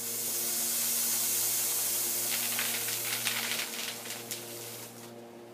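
Coca-Cola Zero and Mentos geyser erupting: a loud spraying hiss of foaming soda jetting into the air. About two seconds in it breaks up into crackly spatter, then fades near the end.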